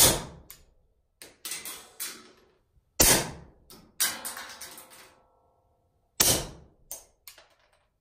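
Suppressed .22LR Beretta 21A pistol firing slow, aimed single shots, the loudest about three seconds apart, with fainter clicks and a brief metallic ringing between them.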